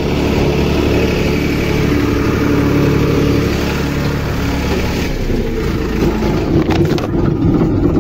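Farmtrac 35 diesel tractor engine running close to the microphone, loud and steady, while the phone recording it tumbles into loose soil. A few knocks come about seven seconds in.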